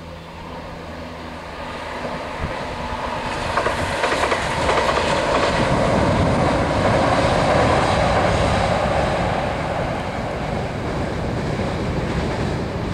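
Southern electric multiple unit passing over a steel railway viaduct: a rumble and rattle of wheels on the bridge that swells to its loudest in the middle, then eases off a little as the train moves away.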